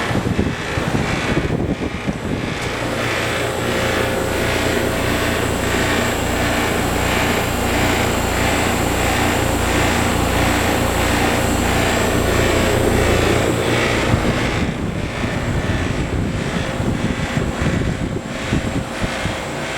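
Trane XL15i outdoor air-conditioner unit running, its fan whooshing steadily. For about ten seconds, starting a couple of seconds in, a low hum pulses about twice a second with a rattle, and then it stops while the fan noise carries on.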